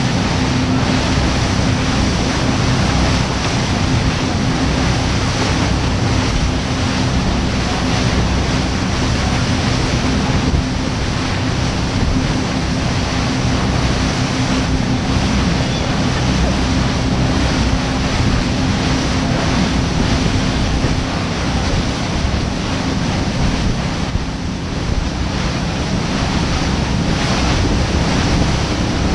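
Motorboat running at speed: a steady engine drone under rushing water from the wake and wind buffeting the microphone. The engine tone fades somewhat about two-thirds of the way through.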